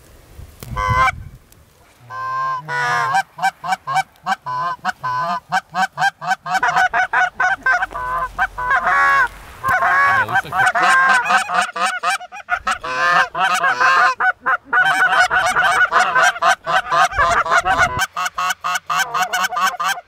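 A flock of geese honking: many short calls overlapping, thin at first and dense and continuous from about two seconds in.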